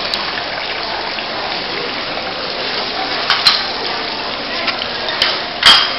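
Steady hiss of splashing water, with a few sharp clicks over it, the loudest just before the end.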